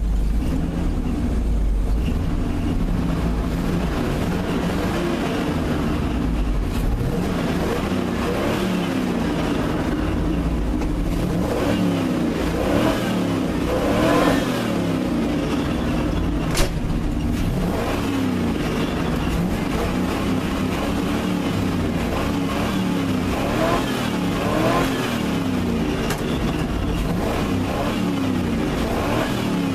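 Pickup truck engine running and revving, its pitch rising and falling again and again; the owner says the engine has a rod knock and needs a head gasket. A single sharp click just past halfway.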